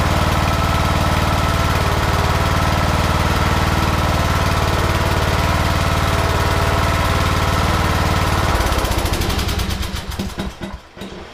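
A Troy-Bilt Pony riding mower's OHV engine idles steadily, then is switched off about eight and a half seconds in and runs down with a few slowing, sputtering strokes before stopping.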